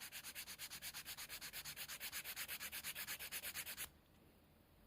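Nail file filing a freshly sculpted nail in quick, even back-and-forth strokes, about eight a second. The filing stops about four seconds in.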